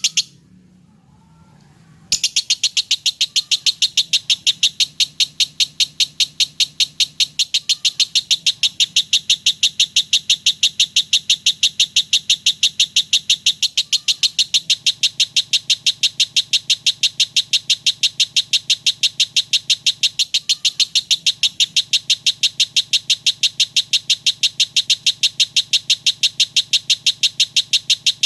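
Lovebird chattering in a long unbroken run of rapid, evenly spaced high chirps, the nonstop 'konslet' style of ngekek song. It starts about two seconds in after a brief chirp and a short pause.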